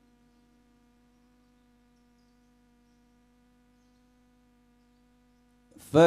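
A faint steady hum in near silence. Near the end a man's voice cuts in loudly through a microphone, starting melodic Qur'an recitation.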